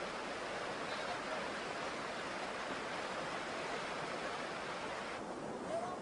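Steady rush of a fast-flowing river over rapids. About five seconds in, the sound changes abruptly and its higher hiss drops away.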